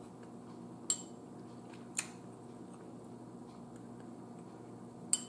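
Metal spoon clicking against a takeout cup of food as it scoops, three sharp clicks: about one and two seconds in, and again near the end, over a faint low hum.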